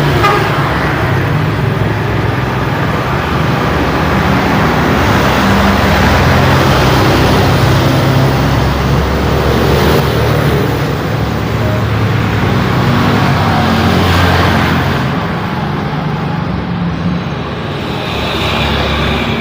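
Heavy road traffic of buses, trucks, cars and motorbikes passing continuously, a dense steady rumble of engines and tyres that swells through the middle and eases off near the end.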